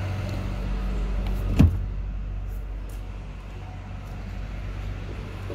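A single sharp clunk from the 2016 Toyota Sienta's body or fittings about a second and a half in, over a steady low hum.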